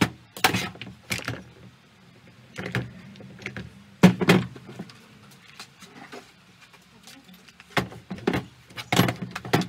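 Hand work on a Hyundai 650 Turbo chainsaw during a fuel tank change: a series of irregular sharp knocks and clicks as parts and tools are handled, with bunches near the start, in the middle and near the end.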